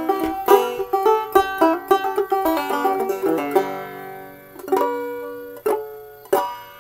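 Homemade banjo with an old frying-pan body and a goatskin head, picked in a fast run of plucked notes. About halfway through the picking stops, and a few single strums follow, each left to ring and fade.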